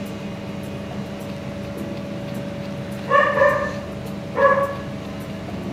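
A small dog gives two short whining yelps, about three seconds in and again just over a second later, over a steady machine hum.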